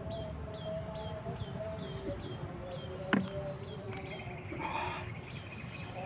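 Birds chirping outdoors: a short falling chirp repeated quickly, about two or three times a second, fading out after about four seconds, with a higher call about every two seconds. A brief falling sound stands out about halfway through.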